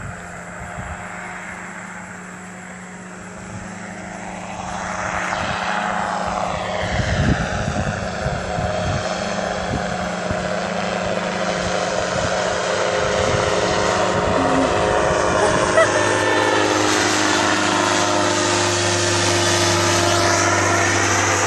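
Powered parachute trike's engine and propeller drone, growing steadily louder as the aircraft flies in low toward and over the listener.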